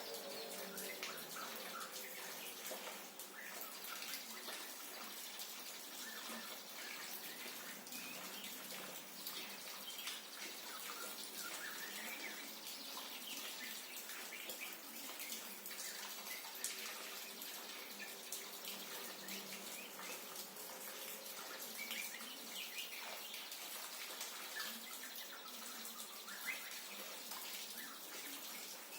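Steady rain with dripping water, with a white-rumped shama singing short chirping phrases on and off over it.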